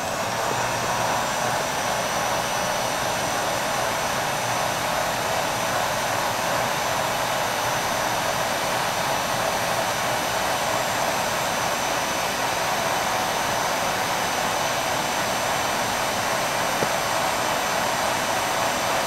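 Heat gun with a reflector nozzle switched on and blowing steadily, shrinking a heat-shrink environmental splice sleeve over a crimped wire splice.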